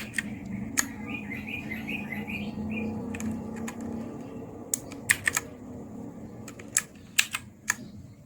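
Keys of an HP GK400F mechanical keyboard pressed one at a time, about a dozen scattered clicks at an uneven pace, some in quick pairs about five seconds in and again near the end.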